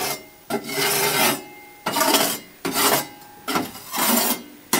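Long-handled metal scraper scraping caked soot off the top of a wood cook stove's oven, in about five rasping strokes, roughly one a second.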